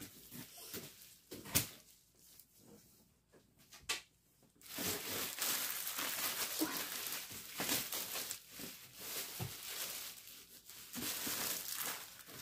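Plastic wrapping crinkling and rustling as it is pulled and crumpled by hand off a large cardboard box. First a few sharp snaps, the loudest about a second and a half in, then from about five seconds in a steady, dense crinkling.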